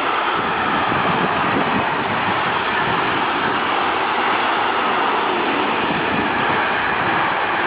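Train passing on the line: a steady, loud rolling noise from its wheels on the rails.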